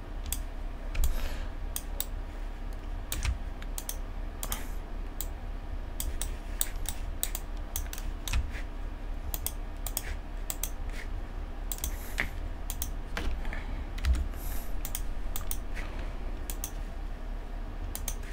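Computer keyboard keys clicking in irregular runs, a few at a time, over a steady low hum.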